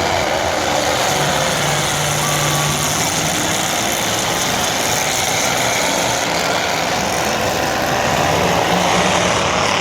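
Demolition derby trucks' engines running in a steady, loud mix of engine noise, with no single crash standing out.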